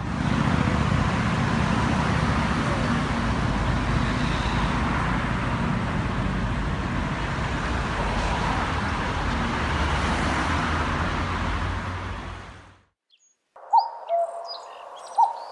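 Steady road traffic noise from cars on a wide multi-lane city avenue, cutting off abruptly near the end. After a brief silence, birds chirp and call.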